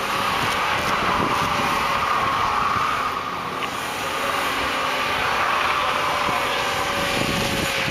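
BMW E36 3 Series saloon doing donuts: the engine is held at high revs while the spinning rear tyres squeal steadily in a cloud of tyre smoke.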